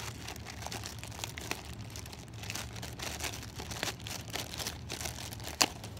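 Clear plastic wrapping crinkling and crackling as it is pulled open by hand, with one sharp crackle near the end.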